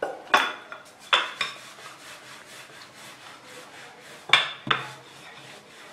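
Wooden rolling pin knocking on a stone countertop while paratha dough is rolled out: a few sharp knocks, three in the first second and a half and two more about four seconds in, with soft rubbing between.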